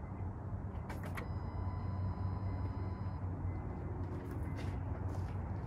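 Honda CR-V's engine idling with a steady low hum. A click about a second in is followed by a faint, high, steady tone lasting about two seconds, and a few lighter clicks come near the end.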